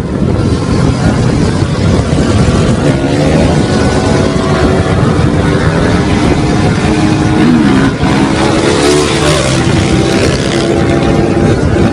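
Several motorcycles running together at speed, their engine pitch rising and falling as the riders work the throttles, with wind rushing over the microphone.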